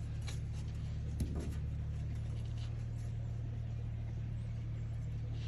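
A steady low machine hum, with a single sharp click about a second in.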